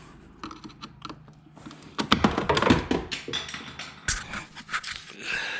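Hand tools clicking and tapping against the air-intake hose clamps and housing as the clamps are loosened. A quick run of clicks comes about two seconds in, and a sharp knock about four seconds in.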